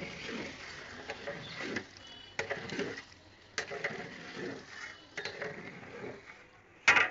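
A long-handled metal ladle stirring a wet rice mixture in a large aluminium cooking pot, scraping along the pot and knocking against its side in a few sharp clanks. The loudest clank comes near the end.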